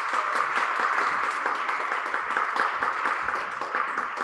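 Applause from a small group of people: a dense, steady run of hand claps.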